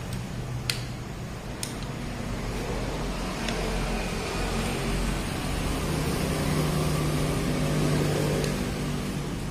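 A few sharp clicks, then the hum of an engine running that swells over several seconds and eases off slightly near the end.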